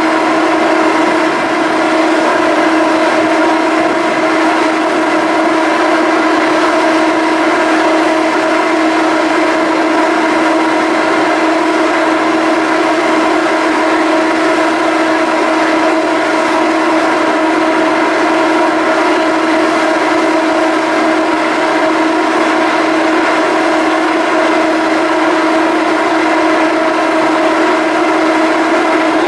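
Steady machinery hum of a BC Ferries Salish-class ferry: a constant loud drone with a low tone and overtones above it, unchanging throughout.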